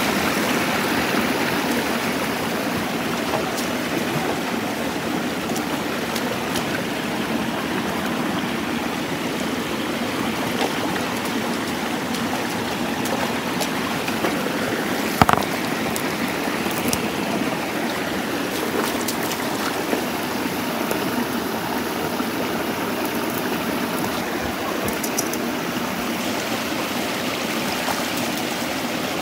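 Shallow rocky stream running and splashing over boulders, a steady rush of water. A single sharp knock cuts through about halfway.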